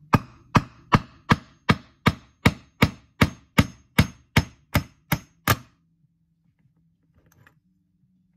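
A hammer striking the top of a bearing puller's threaded steel rod about fifteen times, a little over two blows a second, then stopping. The blows blind-pull the rear ball bearing out of a Pro-50BK glow engine's crankcase.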